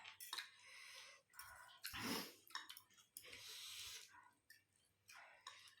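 A person eating close to the microphone: chewing and mouth noises in a string of short bursts, the loudest about two seconds in.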